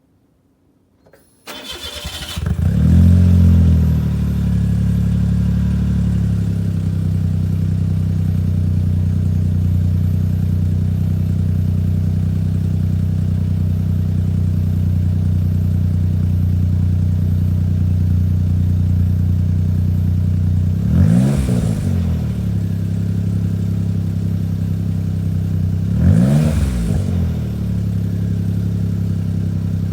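Suzuki Jimny JA22W's 660 cc turbocharged three-cylinder engine heard through a WirusWin compact muffler with its silencer insert removed. It starts about a second and a half in, flares up, settles to a steady idle, and is blipped twice near the end.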